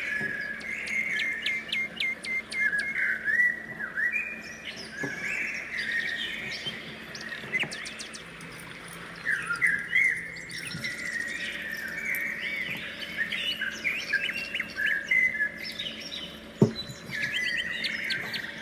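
Small birds chirping and singing, many short calls and trills overlapping continuously. One sharp knock sounds near the end.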